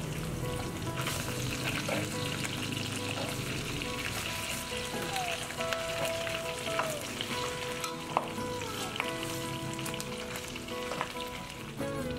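Pork chunks sizzling in hot oil as they brown in a stainless steel wok, with a few sharp clicks of metal tongs against the pan as pieces are turned.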